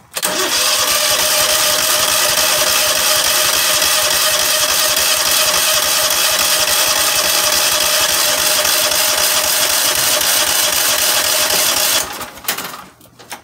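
Cub Cadet riding tractor's electric starter cranking the engine steadily for about twelve seconds without it catching, then stopping. The engine will not start, with a stiff choke suspected.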